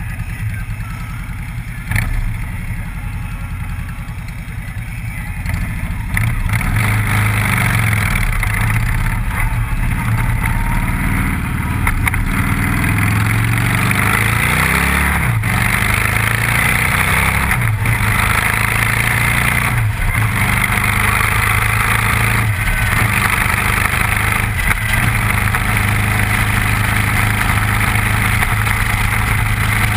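Motorcycle engine idling at a stop, then pulling away and accelerating. The pitch climbs, with short breaks in the sound about every two seconds as it picks up speed, then it settles into steady cruising with wind noise on the microphone.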